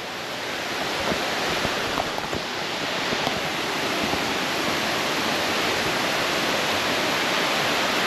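Cascading waterfall water rushing steadily, a dense hiss of white water that grows louder over the first few seconds and then holds.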